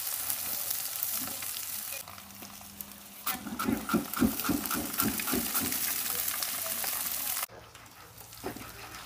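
Vegetables sizzling in foil trays over a hot lump-charcoal fire, with a steady crackling hiss and quick pops. The sound drops away sharply about seven and a half seconds in.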